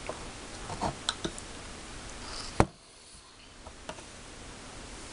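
Scattered light clicks and taps of hands handling the plastic mould tray and a powder packet of a DIY candy kit, with one sharp click about two and a half seconds in, after which the background is quieter.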